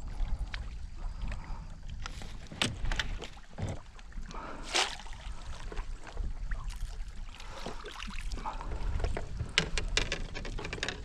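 A hooked northern pike splashing at the surface beside a canoe as it is played and netted. Sharp splashes and knocks against the hull come every so often, with a cluster near the end, over a low steady rumble.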